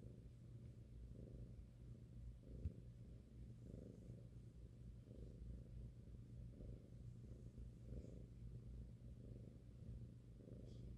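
Young cat purring steadily while its head is rubbed, the purr swelling and fading with each breath about every second and a half. A single short click sounds between two and three seconds in.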